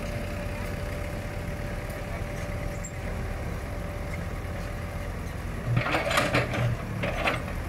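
Hitachi tracked excavator's diesel engine running steadily at idle. About six seconds in there is a brief louder burst of noise, lasting roughly a second and a half, as the machine works.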